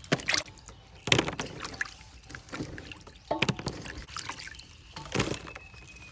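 Vegetables being washed by hand in a bowl of water: irregular splashes and drips, with a few sharper knocks about a second or two apart.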